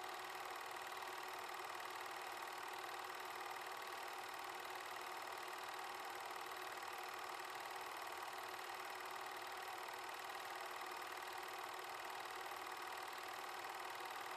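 8mm film projector running steadily, its motor and film transport making an even, unbroken mechanical whir.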